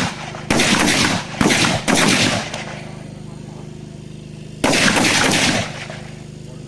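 5.56mm INSAS rifle fired in rapid, short bursts: three quick bursts in the first two seconds, then after a pause a longer burst about two-thirds of the way through. A steady low hum runs underneath.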